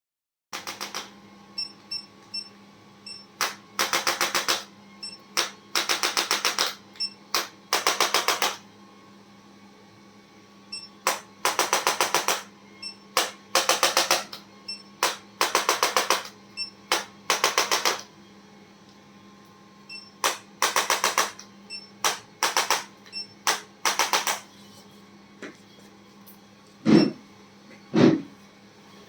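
Handheld electric percussion tool of the kind used in chiropractic treatment, firing short bursts of rapid pulses over and over. Two heavier thumps come near the end.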